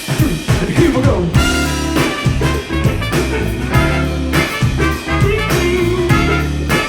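Live band playing a swing-blues groove: a drum kit alone for about the first second, then the full band, bass, guitar and other instruments, comes back in over the beat.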